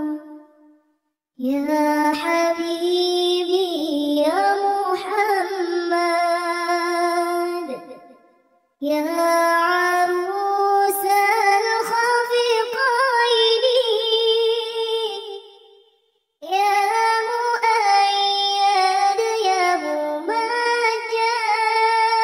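A high, child-like voice unaccompanied, singing a shalawat (Arabic devotional song praising the Prophet) in three long, ornamented phrases, the notes gliding and wavering, with short pauses for breath between them.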